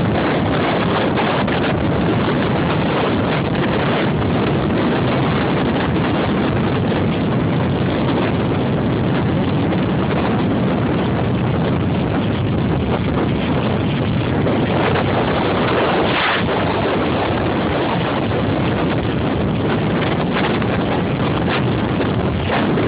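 Big sea waves breaking and surging at high tide as a steady, loud rush, with wind buffeting the microphone. A brief louder surge comes about two-thirds of the way through.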